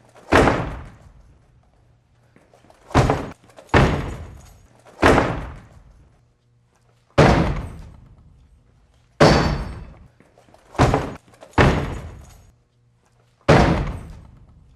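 Nine heavy blows against a locked, deadbolted door, coming at irregular gaps of about one to two seconds. Each is a loud thud with a short ringing decay. The door and lock hold under the attack.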